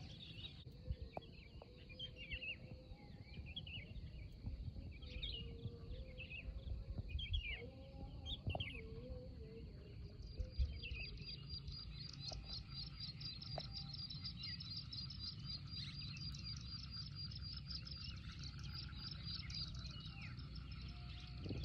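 Faint morning birdsong: small birds chirping and twittering over a constant thin high tone. From about ten seconds in, a fast, even, high trill joins.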